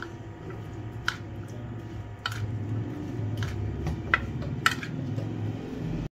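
A steel spoon stirring a wet gram-flour batter with onion and potato in a plastic bowl: soft squishing with about five sharp clicks of the spoon against the bowl, over a steady low hum.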